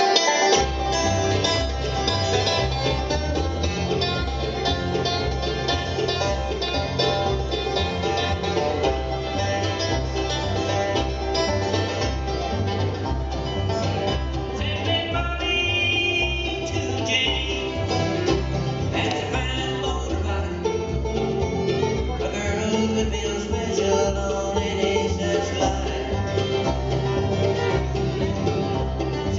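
Bluegrass band playing live: banjo, guitar, mandolin and fiddle over an upright bass, which comes in about half a second in.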